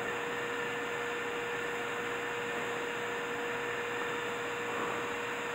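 Steady electrical hum: one constant mid-pitched tone over an even hiss.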